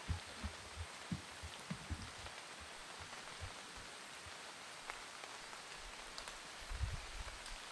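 Rain falling on forest leaves, a faint even hiss, with a few soft low thumps in the first couple of seconds and again near the end.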